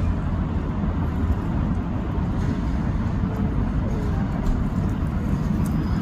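Steady low outdoor rumble of city background noise, with no distinct event standing out.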